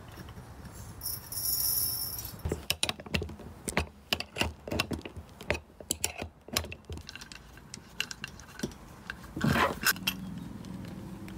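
Small hard molecular sieve beads being poured into the compressor's oil adsorber: an irregular run of small clicks and rattles, with a louder clatter near the end.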